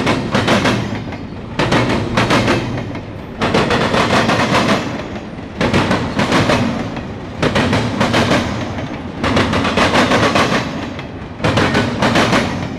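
Norfolk Southern double-stack intermodal train passing close by, its well-car wheels clacking over the track in a repeating rhythm: a cluster of sharp clacks about every two seconds, with a rumbling roll between them.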